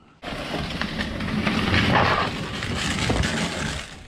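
Plastic wrapping crinkling and rustling inside a cardboard box as a hand rummages through it, starting a moment in and stopping shortly before the end.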